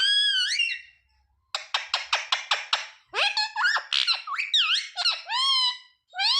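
Ringneck parrot calling. A whistled arching call opens, then comes a fast run of short clipped notes for about a second and a half, then a string of rising and falling squawks and whistles.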